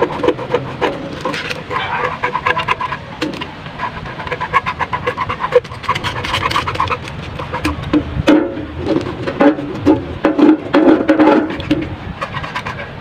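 Hacksaw sawing through a black rubber radiator hose in quick, repeated back-and-forth strokes.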